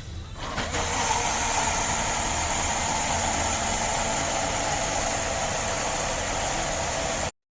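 Portable rechargeable blender's motor running steadily with a high whine, starting about half a second in and stopping abruptly near the end.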